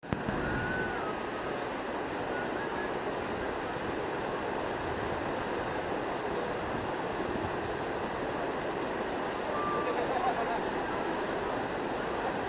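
Steady rushing and churning of white water in a cruise ship's wake, the sea stirred up behind the stern.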